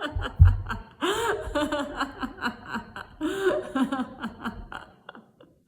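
A woman laughing in quick, rhythmic 'ha-ha' bursts as a laughter yoga exercise, mimicking a rotary phone dial spinning back. The laughter stops about a second before the end.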